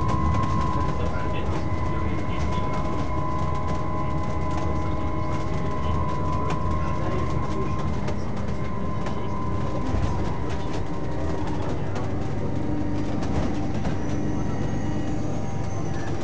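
Inside a Scania double-decker bus with a Cummins engine, heard from the upper deck while it drives: a steady drone from the engine and drivetrain with a high whine that fades about halfway through, road noise, and frequent light clicks and rattles.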